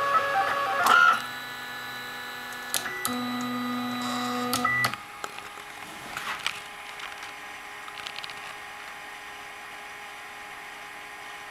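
Ultimaker 3D printer's stepper motors whining at several steady pitches that jump in steps as the print head changes speed and direction, loudest for the first second. About five seconds in the motors stop, leaving a faint steady hum and a few light clicks.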